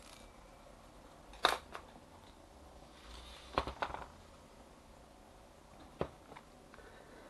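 Parts of a copier fuser unit being handled and set down on a steel work table: sharp clacks of hard plastic and metal, one about a second and a half in, a quick cluster around three and a half to four seconds, and one more near six seconds.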